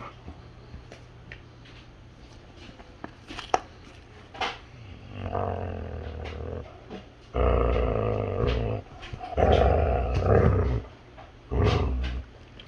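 A dog growling over its chew stick as a hand reaches to take it, a warning to keep off. Four long, low growls start about five seconds in, the middle two the loudest.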